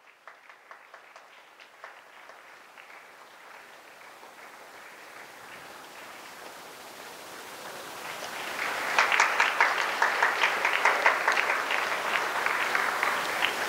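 Audience applause: a few scattered claps at first, swelling about eight seconds in into steady clapping from many hands.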